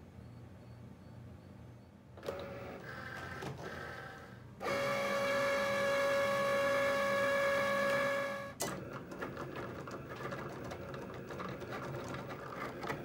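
Cricut cutting machine loading and moving a cutting mat. A short motor whir starts about two seconds in, then a loud steady whine runs for about four seconds and cuts off suddenly. Quieter stop-start motor whirring and ticking follow as the rollers and carriage move the mat.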